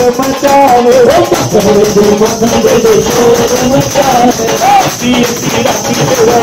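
Hindu devotional bhajan sung into a microphone: a single voice carries a wavering melody over rattling hand percussion keeping a steady beat.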